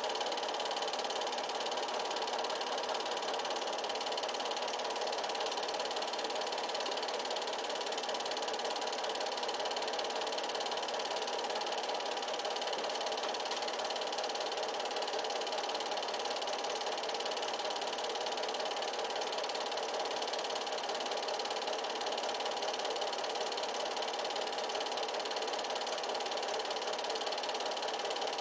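8mm film projector running steadily, its mechanism making an even, unbroken mechanical noise.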